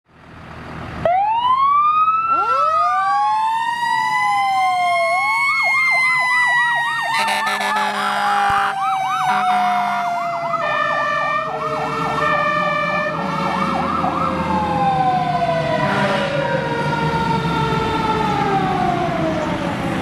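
American fire engine sirens start about a second in: a mechanical Q siren winding up together with an electronic wail, then a fast yelp. Blasts of the air horn come in the middle, and the Q siren winds slowly down through the last several seconds.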